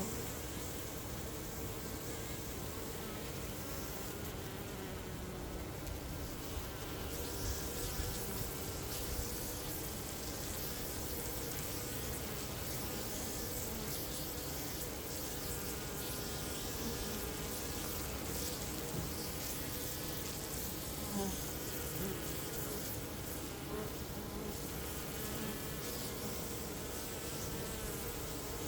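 Honeybees buzzing: a steady, continuous drone of many bees at once, with many wavering pitches layered together.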